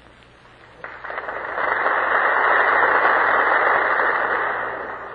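Audience applauding, swelling about a second in and fading away near the end. It is heard through an old recording with a narrow, muffled sound.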